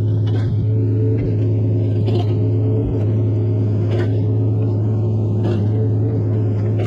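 Mini excavator's diesel engine running at a steady speed, with a few short knocks and clanks from the machine's work.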